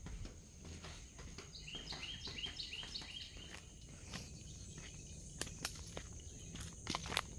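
Outdoor ambience of a steady, high, even insect drone, with a bird calling a quick run of about eight short repeated notes about two seconds in. A few sharp clicks come near the end.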